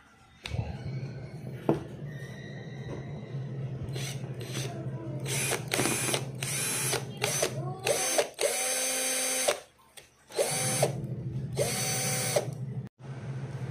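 Cordless drill motor test-run with the housing open, after a DC motor change. It turns slowly at first, then gives several short high-speed bursts on the trigger, then two longer runs of a second or two each with a steady high whine, and cuts off shortly before the end.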